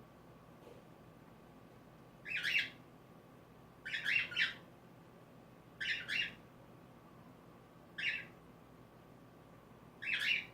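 Cockatiel giving short, harsh squawking calls, five of them about two seconds apart, the second one doubled.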